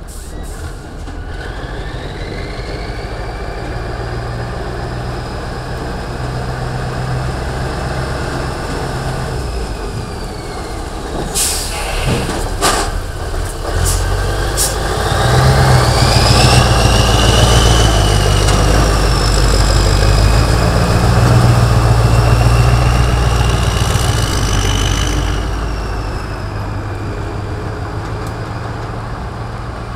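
Vintage Scania 140 truck's diesel engine pulling a heavy low-loader trailer, with a high whistle that rises and falls with the revs. Short sharp air-brake hisses come about twelve seconds in, and the engine grows loud as the truck drives past, easing off near the end.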